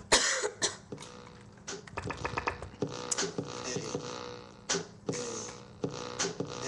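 Hip-hop track playing: a hard hit at the start, then a steady drum-machine beat before the rap vocals come in.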